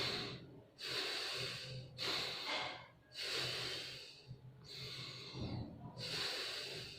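A man doing bhastrika pranayama (bellows breath): strong, audible breaths drawn in and pushed out through the nose, each about a second long, one after another in a steady rhythm.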